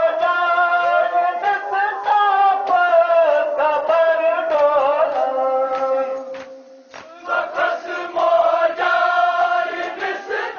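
A group of voices chanting a Kashmiri nohay, a Muharram lament, in unison, with sharp rhythmic slaps about twice a second, typical of matam chest-beating. The singing holds one long note, breaks off briefly a little after six seconds, and comes back in just after seven seconds.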